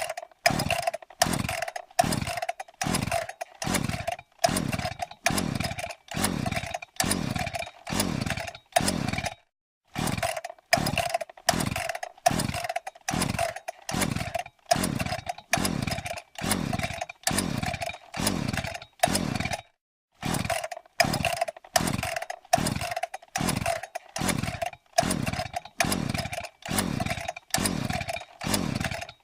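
Chainsaw sound effect: the saw's motor in short, evenly repeated bursts, a bit under two a second, each one dropping in pitch, with dead silence between them. A brief break comes about every nine and a half seconds before the same pattern starts again.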